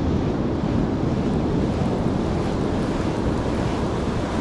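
Ocean surf washing up a sandy beach, a steady rush of noise, with wind buffeting the microphone.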